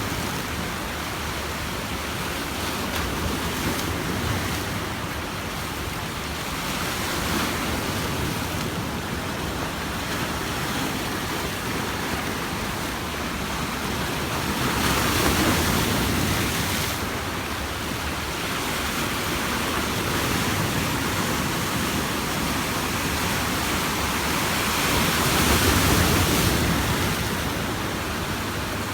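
Sea waves breaking and washing on a beach, a steady rush of surf that swells louder twice, about halfway through and near the end. Some wind noise on the microphone.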